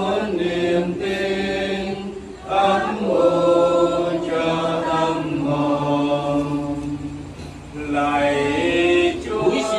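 A congregation singing together in unison, slow phrases with long-held notes, breaking for breath about two and a half seconds in and again near eight seconds.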